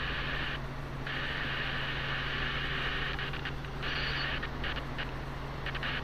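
Helicopter cabin noise in flight: a steady low drone with a constant hum, and a hiss that drops out briefly several times.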